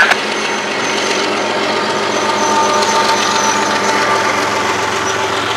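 GE AC4400CW-type diesel locomotive running as the train's rear distributed-power unit as it passes, its engine giving a steady hum with a thin whine over it. The wheels roll over the rails beneath.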